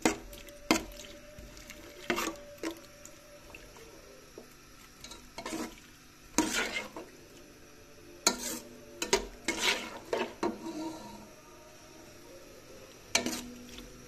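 A steel spoon scraping and knocking against a nonstick pan as sliced onions are stirred in oil. The strokes come irregularly every second or two.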